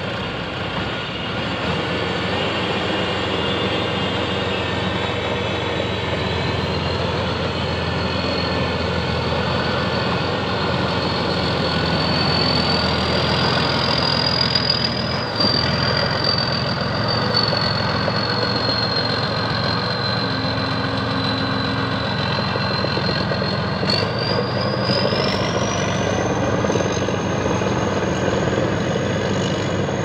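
TSY rice combine harvester running: a steady engine and machinery noise with a thin high whine over it that climbs higher about four-fifths of the way through.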